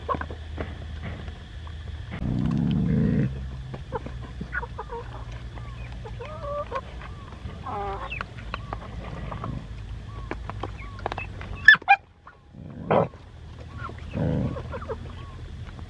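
Chickens clucking in short calls around dogs eating from a bamboo tray, with small chewing clicks, a few short low rumbles and a sharp knock about twelve seconds in.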